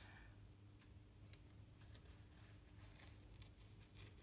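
Faint scratching and scattered ticks of a wooden satay skewer scoring through dried engobe on a leather-hard clay tile, over a low steady hum.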